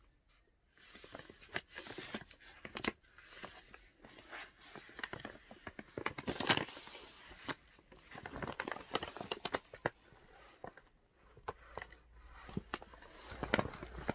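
Brown paper mailer envelope crinkling and rustling under hands, in irregular small crackles and scrapes.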